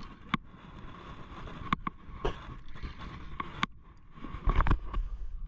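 Scattered sharp clicks and knocks from handling a spinning rod and reel on a small boat while playing a hooked fish, over a steady background hum. A loud low rumble comes about four and a half seconds in.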